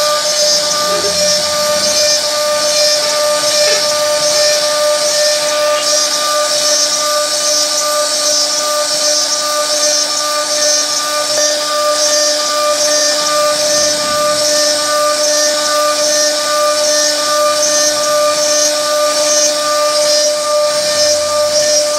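CNC router spindle running with a steady high whine while its carving bit cuts into a wooden board, with a constant rasping noise from the cut.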